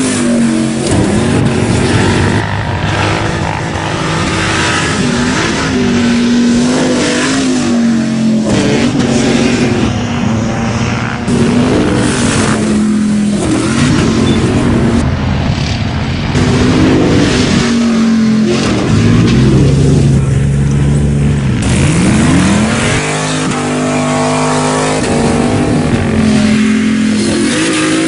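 Off-road pickup truck engine revving hard, its pitch climbing and dropping again and again as the truck accelerates and lets off, with tyre and body noise underneath. The sound changes abruptly several times, as between separate shots.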